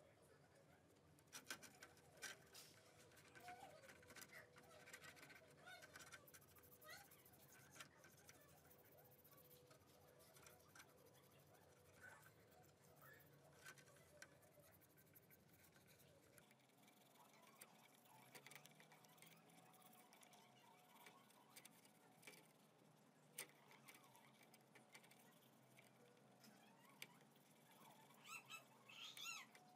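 Faint scrubbing of a toothbrush on small metal model parts in soapy water, with scattered light clicks and taps.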